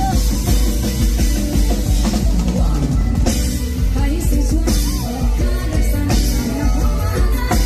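Live band music over the stage PA: a drum kit and bass keeping a steady beat under a woman singing a Thai mor lam-style song into a microphone.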